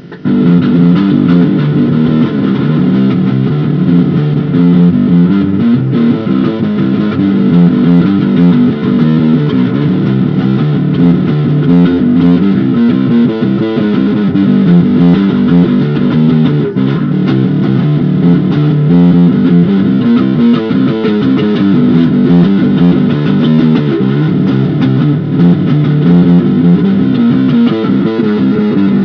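Bass guitar being played loudly in a continuous run of notes that does not let up.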